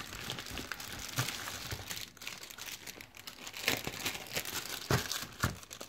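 Thin plastic bag crinkling and rustling as it is handled and pulled open at its staples, with a few sharper crackles near the end.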